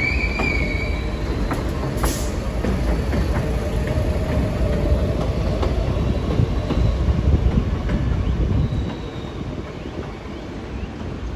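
R160B subway train pulling out of an elevated station: wheels rumbling and clacking over the rails, with a brief high wheel squeal at the start. The sound falls away about nine seconds in as the last car moves off.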